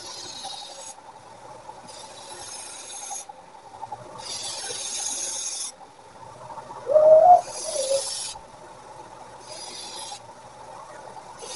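Rasping strokes of hand abrasion on a leaf-spring steel blade, about six strokes of roughly a second each with short pauses between. A loud, short wavering call cuts in about seven seconds in.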